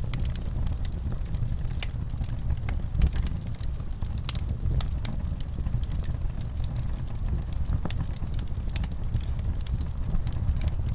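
Wood fire burning in a fireplace: a steady low rumble of the flames with sharp, irregular crackles and pops from the burning logs.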